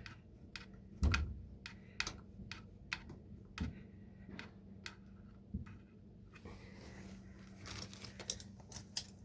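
Small metal clicks and taps from hand work on a furnace gas valve, threading a manometer hose barb fitting into the valve's pressure port, in an irregular series with a cluster near the end. A steady faint low hum runs underneath.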